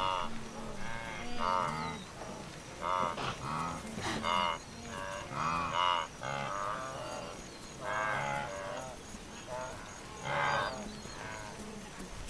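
Wildebeest calling, a run of short moo-like calls in quick succession, about one a second. Some are low grunts and others higher-pitched.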